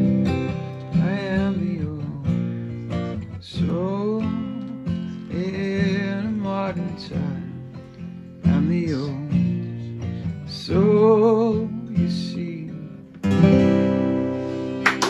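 A man singing with vibrato over a strummed acoustic guitar; about thirteen seconds in the voice drops out and a loud strum rings on.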